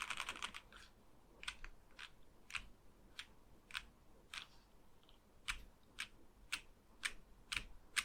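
Mechanical keyboard with lubed Gateron KS-3 Black linear switches on a plateless PCB in a wooden case, with ABS keycaps: a fast flurry of keystrokes cut off about half a second in, then single key presses, about two a second and sometimes in pairs, as keys are pressed one by one to show the flex of the plateless board.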